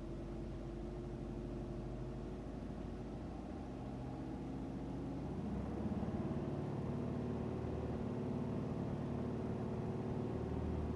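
2005 Subaru Legacy GT's turbocharged 2.5-litre flat-four engine running rough with a misfire, a steady drone that rises a little in pitch and gets louder about five seconds in, then holds.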